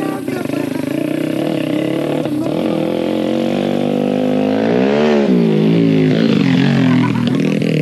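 A motorcycle engine running close by. Its pitch rises and falls about five seconds in as it revs and rides past, the loudest point.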